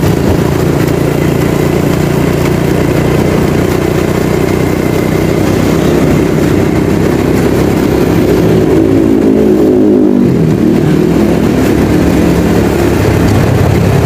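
Motorcycle engine running at road speed with a steady rush of wind and road noise. About two-thirds of the way through, the engine note drops and the rushing eases as it slows, then the note climbs again as it speeds back up.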